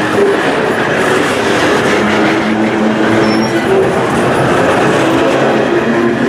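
Canadian Pacific coal train cars rolling past close by: a steady, loud rumble and rattle of steel wheels on the rails.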